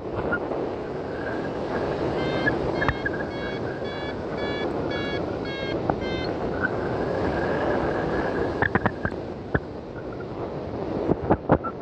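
Wind rushing over the microphone of a paraglider in flight. From about two seconds in until about six seconds in, a variometer beeps its climb tone at about two to three beeps a second, the sign that the glider is rising in lift. A few sharp clicks come near the end.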